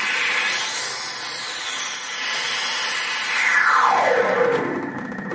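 Electronic feedback noise from a sound-light feedback installation: a steady dense hiss, with a pitched tone sweeping down from high to low about three seconds in.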